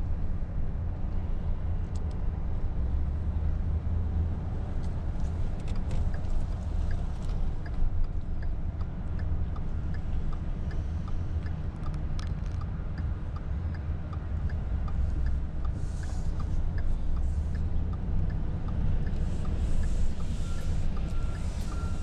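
Steady low rumble of a car on the move, heard from inside the cabin, with a faint regular ticking through much of it.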